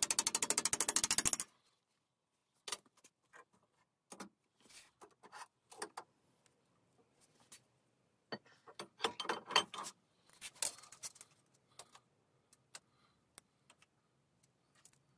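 Rapid, evenly spaced hammer blows from a cobbler's hammer folding a flange on a steel sheet clamped over a bench edge, stopping about a second and a half in. After that come scattered clinks and knocks of steel tools and clamps being handled on the metal bench.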